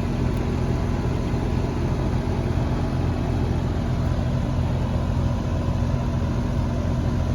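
Residential central air conditioner's outdoor condensing unit running steadily: the compressor's low hum under the steady rush of the condenser fan. The compressor, which would not start on its own, is running after being fitted with a hard-start kit.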